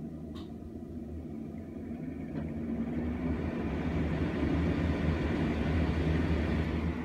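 Mitsubishi centrifugal ceiling exhaust fan starting up with its grille off. After a light click, the rush of air grows louder for a few seconds from about two seconds in as the blower wheel spins up, then runs steadily over a low hum.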